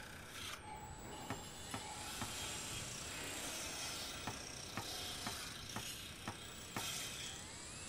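Soft, faint ticks about twice a second over a low steady hiss.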